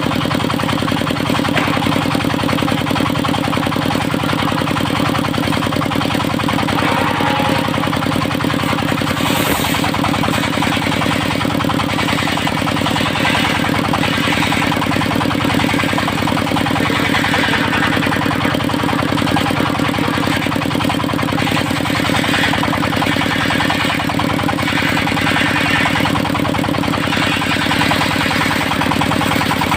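Engine of a portable circular sawmill running steadily, with the saw's cutting noise swelling and fading several times in the second half as the blade works through teak timber. A short sharp click about a third of the way in.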